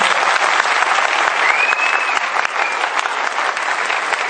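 Audience applauding: dense, steady clapping that eases slightly about halfway through.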